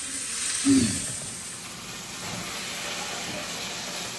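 A steady hiss, with one short low bump just under a second in.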